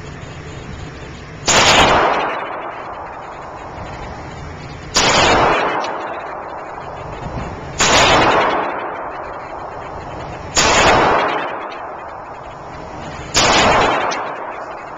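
Semi-automatic pistol fired five times, single shots about three seconds apart. Each shot is a sharp crack followed by a long echo off the walls of an indoor range.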